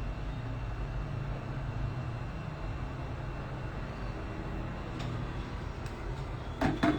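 Steady hum of a bench fan or blower on the repair workbench, with a few short sharp clicks of a metal tool against the iPhone logic board near the end as the CPU is pried off.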